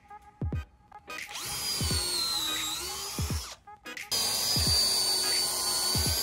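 Cordless drill boring pilot holes into an old wooden beam: a few short trigger pulls, then two long runs of the motor whine with a brief stop between, its pitch sagging and rising with the trigger and the load.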